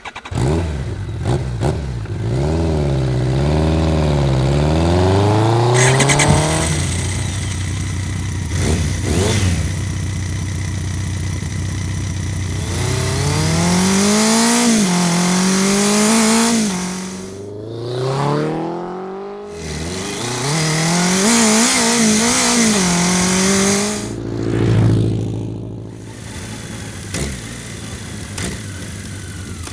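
BMW K100 RS inline-four motorcycle engine revved up and down repeatedly in several separate takes, its pitch rising and falling with each blip of the throttle. A few sharp clicks fall between the takes, and near the end the engine settles to a quieter steady run with light ticks.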